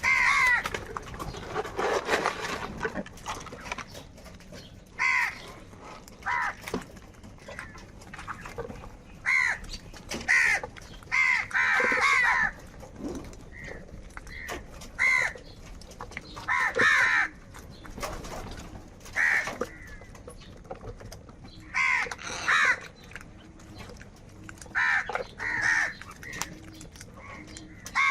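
Crows cawing: short, harsh caws repeated in irregular bouts every second or few seconds throughout, with brief quieter gaps between.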